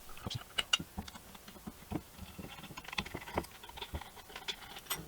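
Scattered light clicks and taps from small screws being undone by hand from a sandblasted aluminium plate, irregular and never settling into a rhythm.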